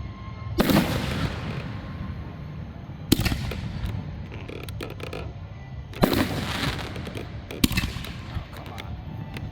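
Fireworks display: four loud booms of aerial shells bursting, a second and a half to three seconds apart, each trailing off briefly, with smaller cracks between them.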